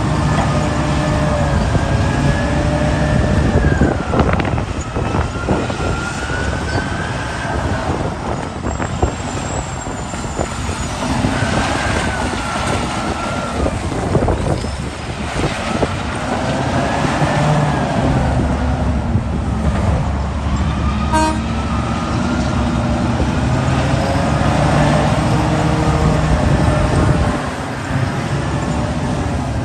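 Diesel engine and hydraulics of a JCB digger working, with a whine that rises and falls as the machine moves and a few knocks along the way.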